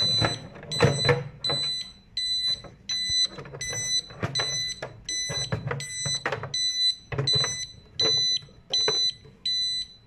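Internal buzzer of an Eaton conventional fire alarm control panel beeping in a steady repeating pattern, a high-pitched pulse about three times every two seconds. It signals that the panel still shows a zone fault.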